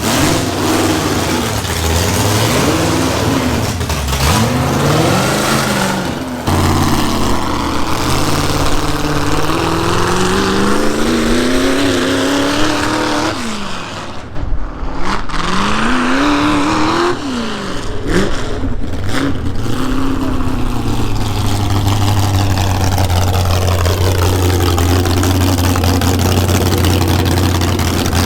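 Car engine revving up and down repeatedly as it is driven, then settling into a steady low drone for the last several seconds.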